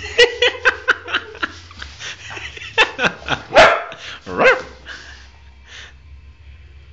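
A puppy barking and yipping: a quick run of short, sharp yips in the first second and a half, then a few louder barks between about three and four and a half seconds in, the loudest near the middle.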